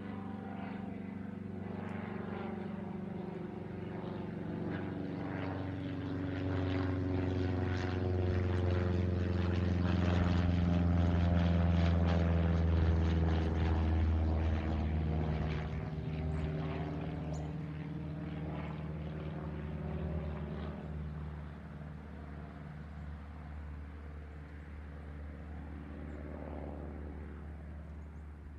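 A Cessna 152's four-cylinder engine and propeller droning as the plane flies overhead. The sound grows louder to a peak about halfway through, drops slightly in pitch as the plane passes, then fades away.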